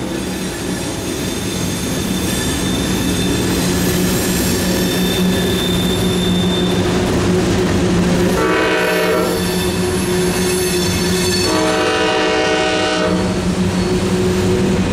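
Freight train's wheels whining as the cars go through tight curves, a steady high-pitched whine over the rumble and clack of the passing cars. Two louder wails rise out of it, one about eight seconds in and a longer one about eleven and a half seconds in.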